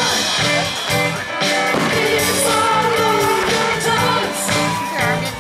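Pop music with a singer, playing steadily.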